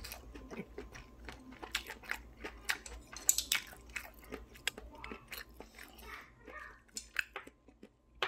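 Close-up mouth sounds of someone chewing springy stir-fried bigfin reef squid: irregular wet clicks and smacks.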